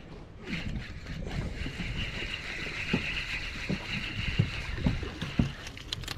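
A spinning reel being cranked steadily as a hooked redfish splashes at the surface, with several short splashes in the second half. Wind rumbles on the microphone throughout.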